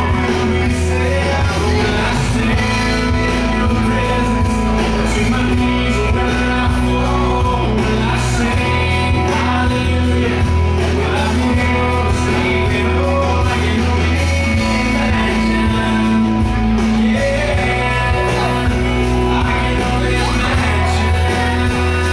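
Live bar band playing loud amplified rock-style music with a steady bass, and singing over it.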